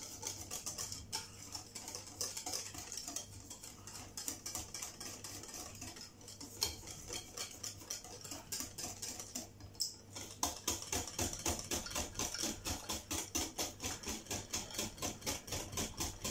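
Wire whisk beating crêpe batter in a glass bowl, the whisk clinking against the bowl. From about ten seconds in the strokes turn louder and regular, about three a second.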